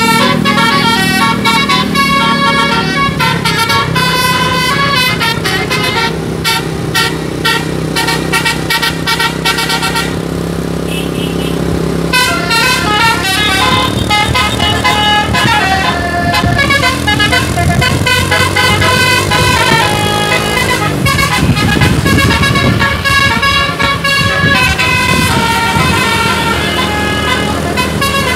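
A bus's musical 'telolet' air horns playing quick melodic runs of classic telolet tunes over a steady low drone. The high notes break off briefly about ten seconds in, then start again.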